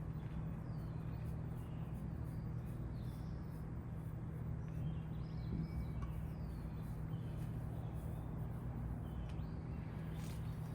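Outdoor ambience: birds chirping off and on, short high calls, over a steady low hum.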